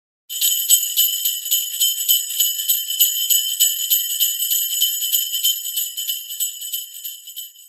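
Jingle bells shaken fast and evenly in a steady jingle that fades out near the end.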